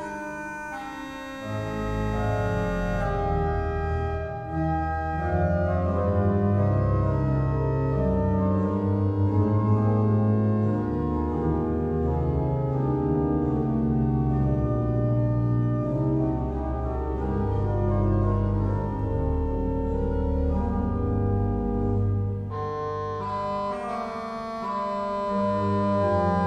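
Pipe organ playing slow, sustained chords over a deep bass line, with brighter, higher stops sounding near the start and again near the end.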